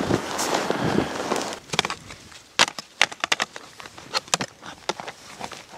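Crunching steps through deep powder snow for about a second and a half. Then a run of sharp, irregular clicks and knocks as snowshoes with metal crampons and bindings are handled and strapped onto a backpack.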